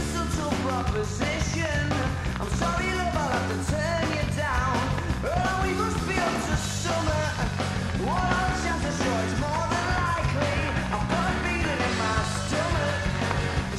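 Fast indie rock song: driving drums, bass and electric guitars, with a male singer's voice over them.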